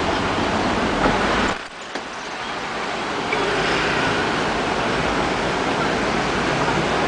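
Steady outdoor city ambience: a loud, even wash of noise. It drops out sharply about one and a half seconds in and builds back up over the next second or two.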